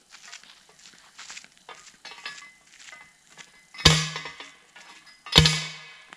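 Two loud ringing clanks about a second and a half apart, in the second half: a pole being rammed down to drive it into hard ground.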